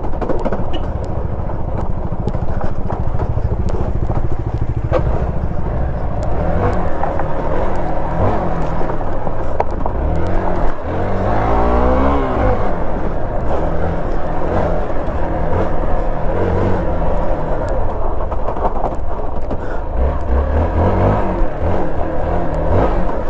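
Motorcycle engine running as it is ridden over a rough dirt trail. Its revs rise and fall with the throttle, most clearly about ten seconds in and again near the end.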